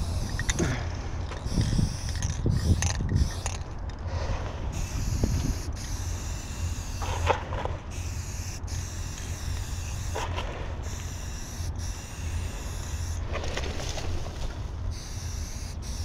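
Aerosol spray-paint can hissing against a wall in repeated bursts of varying length, cutting off briefly between strokes, over a steady low rumble.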